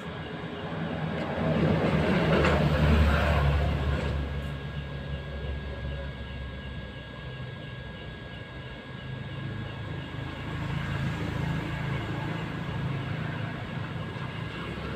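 Hot-air rework gun blowing steadily at a phone's micro USB charging port to melt its solder for replacement, with a steady low hum and faint whine. A louder rumbling swell rises and fades about two to four seconds in.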